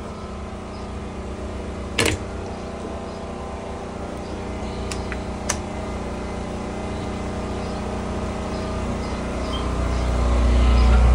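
Car engine running steadily, getting louder and deeper over the last couple of seconds. A sharp knock comes about two seconds in, and two light clicks a few seconds later.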